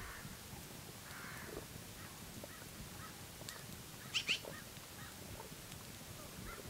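Quiet outdoor ambience with a few short, scattered bird calls, and two brief sharp high sounds about four seconds in.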